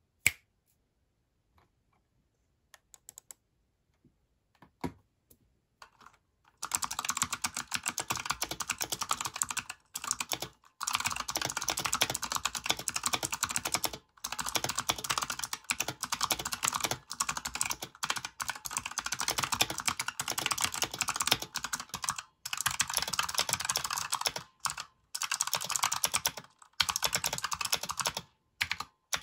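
Typing on a Razer Huntsman Quartz keyboard's opto-mechanical switches, with a sharp click right at the start. A few scattered single keystrokes follow, then from about seven seconds in comes fast continuous typing broken by several short pauses.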